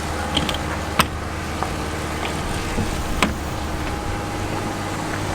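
Steady low hum of a running motor, with two sharp clicks, one about a second in and another just past three seconds.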